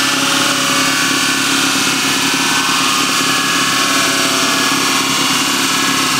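Racing MG Midget's four-cylinder engine running loud on a rolling-road dynamometer, held at a steady, unchanging pitch.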